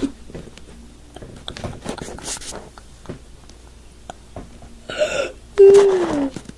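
A person making weird mouth and voice noises: soft clicks and breathy sounds, then about five seconds in a short hissing burst followed by a loud voiced tone that falls in pitch for about half a second.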